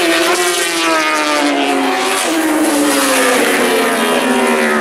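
1000cc four-stroke superbike engines at racing revs as the bikes pass one after another, the engine note of each falling as it goes by, a second bike's higher note coming in about two seconds in.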